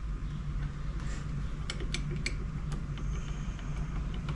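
Crankshaft of a Polaris SLT 750's three-cylinder two-stroke engine being turned by hand on its bearings, with a few light metallic clicks near the middle. The owner judges a crank bearing bad, the source of the metal found in the engine.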